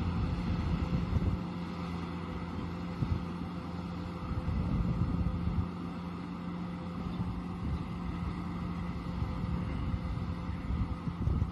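Kubota M6040SU tractor's four-cylinder diesel engine running steadily under load as it pulls a disc plow through a muddy paddy, a constant hum, with wind buffeting the microphone at times.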